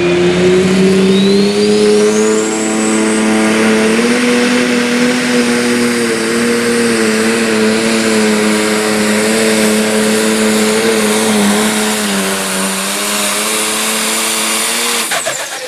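A John Deere 4250 pro stock pulling tractor's diesel engine running flat out under load as it drags the weight sled. A high whistle climbs over the first three seconds and then holds. The engine note stays steady and wavers only slightly, then cuts off near the end.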